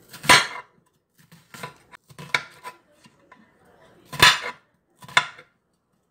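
Chef's knife slicing half an onion on a glass cutting board: about six uneven cuts, each ending in a sharp clack of the blade on the glass, the loudest near the start and about four seconds in.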